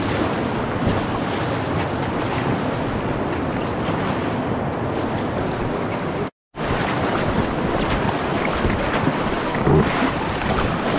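Whitewater river rapids rushing and splashing around an inflatable kayak, with wind buffeting the microphone. The sound cuts out completely for a moment just past halfway.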